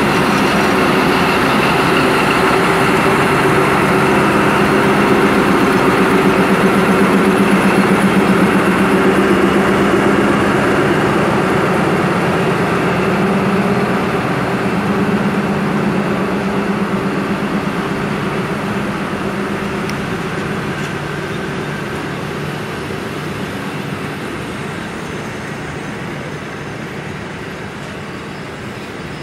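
Diesel-electric locomotive passing close by with a loud, steady engine drone, followed by passenger carriages rolling past on the rails. The engine tone is strongest in the first half and fades gradually as the carriages go by.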